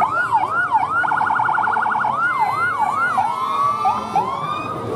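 Electronic siren on a fire engine cycling through its tones: quick rising-and-falling yelps, then about a second of a very fast pulsing warble, more yelps, and slower rising wails near the end.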